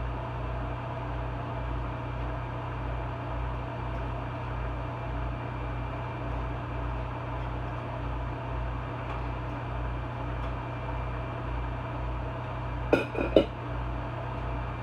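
Steady hum and hiss of a kitchen vent fan, likely the over-the-range microwave's, with a pulsing low drone. Two brief sharp clatters near the end.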